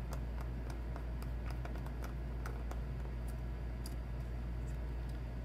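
Small, irregular clicks and taps of a precision screwdriver and tiny T5 Torx screws being worked out of a MacBook Pro's antenna bar, over a steady low hum.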